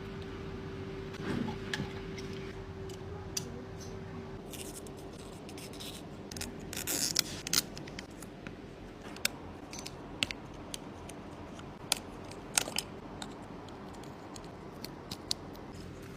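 Scattered sharp clicks and light scrapes of small hand tools working on a Samsung Galaxy Z Flip 3 phone during a display repair, with a busier cluster about halfway through. A steady hum runs under the first half.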